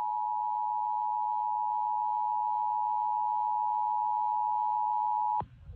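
Emergency Alert System two-tone attention signal: two steady tones sounding together, which cut off sharply about five seconds in. It announces an EAS activation, here a tornado warning relayed over broadcast radio.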